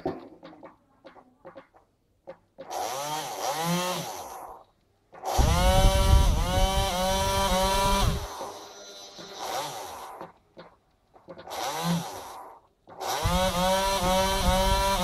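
Small electric motors of a homemade model, its propeller and control-surface drives, running in several separate spells with short quiet gaps between them. Each spell is a whir whose pitch dips and recovers two or three times a second.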